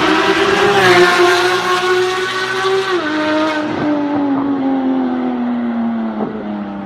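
High-performance sports car engine running at high revs, its pitch dropping suddenly about three seconds in and then sinking steadily as the revs fall.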